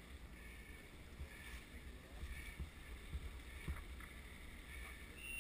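Faint, uneven wind rumble on the microphone, with a few soft clicks about two and a half and three and a half seconds in.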